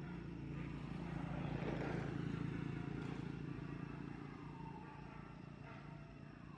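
Engine noise of a passing motor vehicle over a steady low drone, swelling to its loudest about two seconds in and then fading away.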